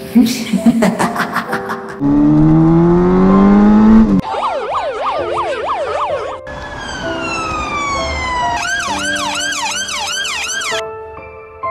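Emergency vehicle siren sound effect over soft background music: a loud rising whine about two seconds in, then a siren sweeping up and down, slower falling sweeps, and a faster yelp near the end. It opens with about two seconds of rapid, choppy sound.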